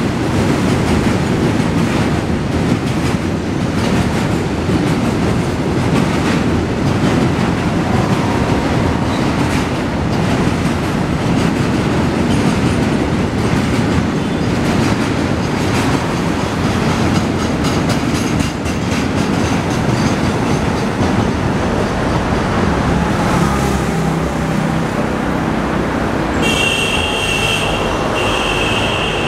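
Freight train of BTPN tank wagons rolling past, a steady rumble with the clickety-clack of wheels over rail joints. Near the end, as the train draws away, a high steady squeal joins in.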